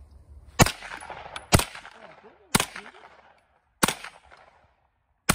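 Ruger PC9 9mm semi-automatic carbine firing five single shots, roughly one a second, each followed by a short trailing echo.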